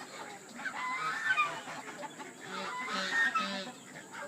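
Farmyard poultry calling: geese honking with chickens clucking, in two bouts, about half a second in and again around two and a half seconds in.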